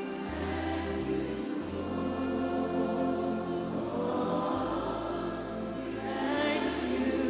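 Worship music: a congregation or choir singing a slow gospel song over keyboard and bass, the bass notes shifting every second or so.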